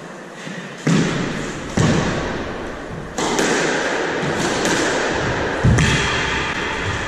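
Squash ball struck by rackets and smacking off the court walls during a rally: a series of sharp, irregularly spaced hits, about four loud ones, each ringing out in the enclosed court.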